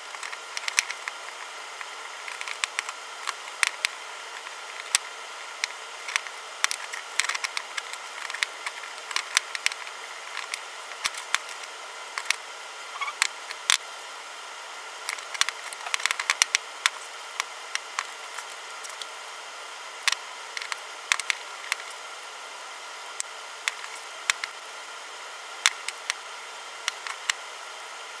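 Hand tap cutting threads into an aluminium brake-rotor adapter: irregular sharp clicks and ticks as the tap is turned, over a steady hiss.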